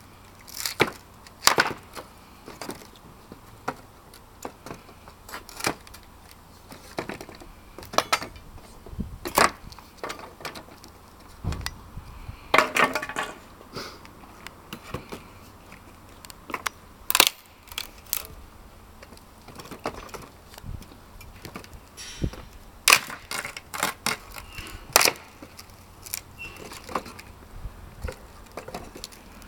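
A wooden pallet being taken apart with a steel lever pallet breaker: irregular sharp cracks and knocks of wood splitting and nailed boards being prised up, with clatter of loose boards and metal, one longer tearing crack about halfway through.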